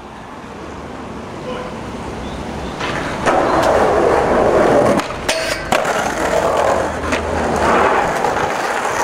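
Skateboard wheels rolling over pavement, growing louder over the first three seconds as the board comes near. A few sharp clacks of the board come along the way.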